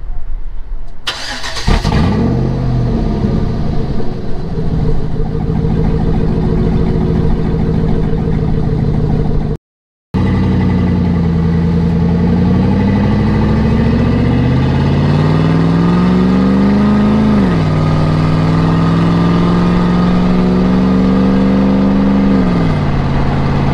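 2011 Chevy Tahoe 5.3L V8 exhausting through open electric cutouts just after the catalytic converters (cat dump), picked up close from under the truck. It starts about a second in, flares and settles to a steady idle. After a cut it pulls away under easy acceleration, rising in pitch through one gear, dropping at an upshift, rising again, then easing off near the end.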